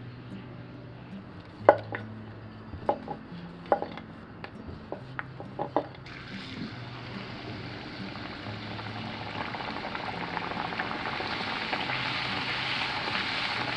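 A few light knocks on a wooden board during the first six seconds. Then a puri starts sizzling and bubbling in hot oil in a kadai, the hiss growing louder toward the end.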